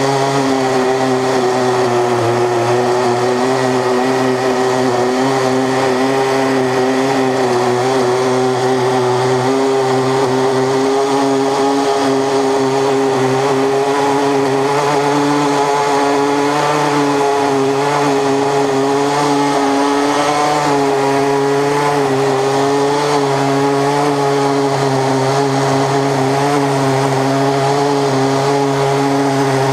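Two Stihl chainsaws, one at each end of an 87-inch bar, running at high revs under load as the mill rips a beech log lengthwise into a slab. The engine note holds steady with only a slight waver.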